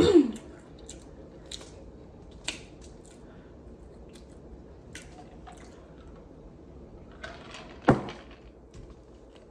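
Close-up eating sounds of someone chewing a dry biscuit, with soft wet mouth clicks and smacks. A single louder short thump comes near the end.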